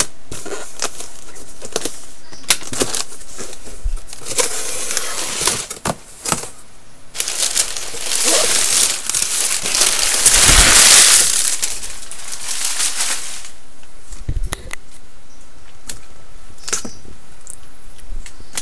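Plastic packaging and a cardboard box being handled while unboxing: rustling, crinkling and scattered clicks, with a longer, louder rustle through the middle.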